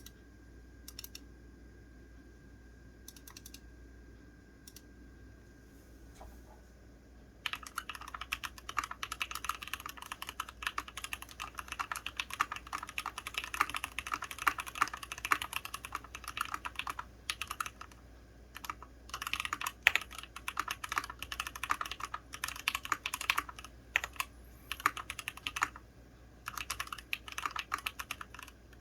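Fast typing on a KBDfans Endless-80 mechanical keyboard with unlubed Everglide Aqua King V3 linear switches (67 g), an aluminum plate and doubleshot ABS keycaps. There are a few faint isolated clicks at first, then rapid steady typing from about seven seconds in, with short pauses.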